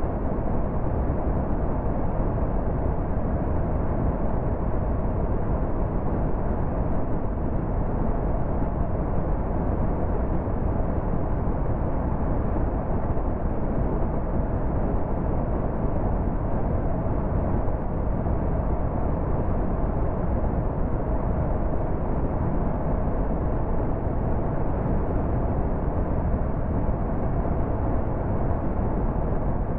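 Car cruising at motorway speed: steady road and tyre noise with a low rumble and a faint steady whine, no change in pace.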